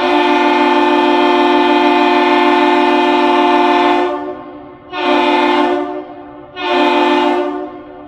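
Deep horn sounding the captain's salute: one long blast of about four seconds, then two short blasts. This long-two-short signal is the salute exchanged between a departing Great Lakes freighter and the lift bridge.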